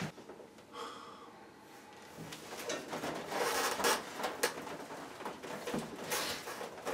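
Faint rustling and a few light knocks and bumps as a person shifts onto his knees and handles things. The loudest bumps come around the middle and again near the end.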